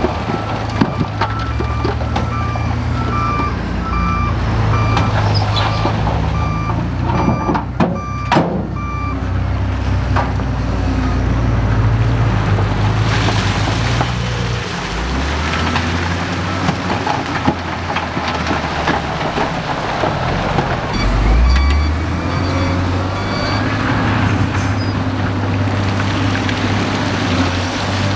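Heavy construction machine's diesel engine running under load, with its reversing alarm beeping steadily through the first eight seconds and again later. There is a sharp knock about eight seconds in, and the engine revs up twice.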